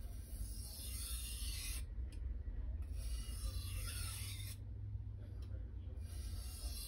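A kitchen knife's steel edge scraping in long passes across a wet Japanese waterstone: about three strokes of a second or two each, with short pauses between them. The sound is consistent and clean, which the sharpener takes as the sign of the blade held flat and level on the stone.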